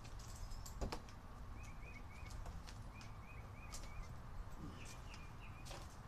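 Faint background with a small bird chirping in quick runs of three short notes, repeated three times, over a low steady rumble. There are a few scattered clicks and one soft knock about a second in.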